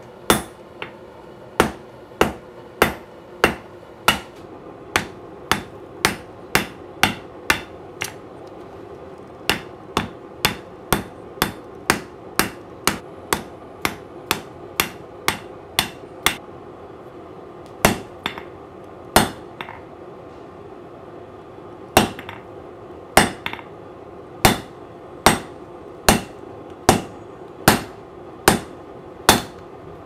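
Hand hammer striking a red-hot bar of 3/4-inch round mild steel on a Nimba Titan anvil, drawing out a tapered point. Sharp ringing blows come at about two a second, with two short breaks about halfway through.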